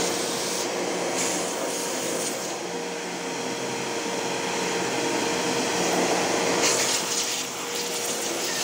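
Multipro vacuum cleaner running steadily with a constant motor whine under its airflow hiss, sucking dust out of the grille of a sewing-machine motor. The hiss turns brighter twice as the nozzle is moved over the grille.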